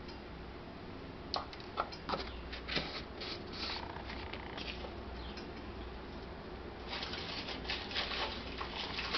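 A few light, sharp clicks of a spoon against the metal sieve in the first three seconds, then faint rustling that grows busier for the last couple of seconds.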